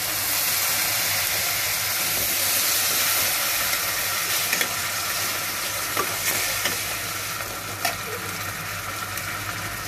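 Half a cup of water just poured into a pan of fried onions and spice paste in hot mustard oil, sizzling steadily and easing a little as it settles. A steel spatula stirring, with a few light scrapes and clinks against the pan.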